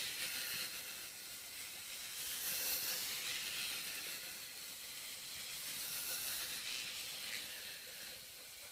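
Faint steady hiss of background noise, with no distinct events.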